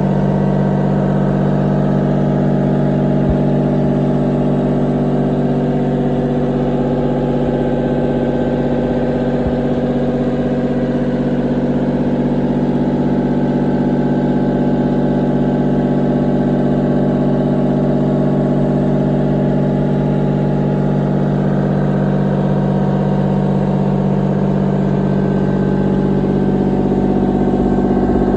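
Excavator's diesel engine running at a steady speed.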